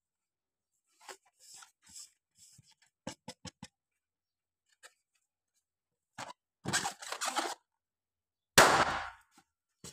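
Fingers rubbing and squeezing an air-filled latex mini balloon, with faint rubbery rubbing and small clicks, then the balloon bursts with one loud, sharp pop near the end.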